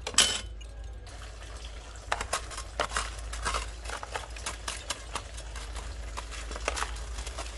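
Luffa gourd simmering in a thin sauce in a wok, the liquid bubbling with many small irregular pops. A brief loud crackle comes just after the start.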